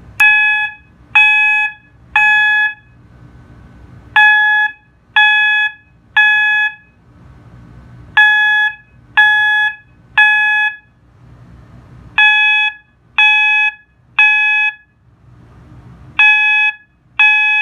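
System Sensor MA alarm horn set to its 800 Hz tone, sounding in the temporal-3 evacuation pattern: three short beeps, a pause, and then again, about every four seconds.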